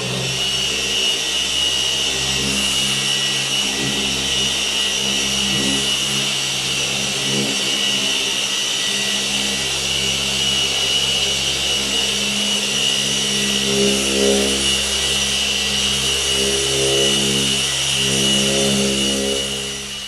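Rupes Mark III 21 mm random-orbital polisher running at speed setting 4.5 with a yellow fine foam pad and fine polish on a car body panel during the fine polishing step. It makes a steady motor hum with a high whine, its pitch wavering slightly as it is worked, and it dies away near the end.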